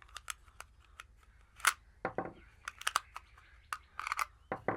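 30-06 cartridges being pressed out one by one from a bolt-action hunting rifle's detachable box magazine (Haenel Jaeger 10 Pro): a series of irregular clicks and light metallic clinks.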